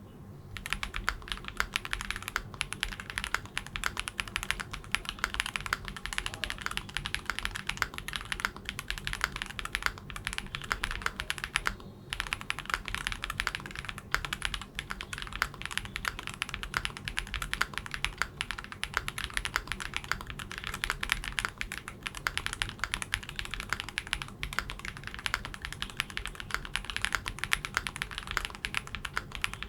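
Fast, continuous typing on a Class65 mechanical keyboard with JWK Peach Blossom switches on a POM plate and GMK Kaiju keycaps, a dense run of keystrokes that pops, starting about half a second in and pausing briefly near the middle.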